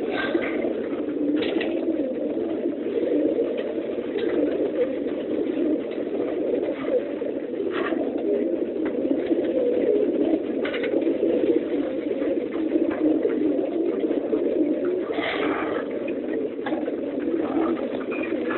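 Many homing pigeons crowded in transport cages cooing together in a dense, steady murmur, with a few short clicks scattered through it.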